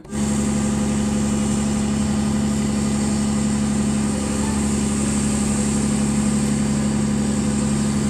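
Diesel dump truck engine running steadily at a constant speed with a low, even drone while the tipper bed is raised to unload sand.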